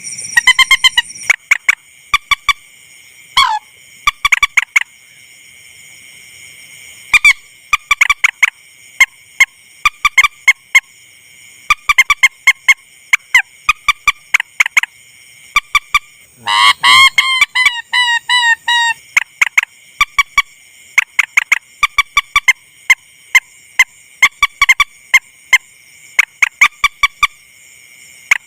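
Rail (burung mandar) lure call played back: loud, short calls repeated in quick clusters every second or so, with a denser run of falling calls about 17 seconds in. A steady high-pitched drone runs underneath.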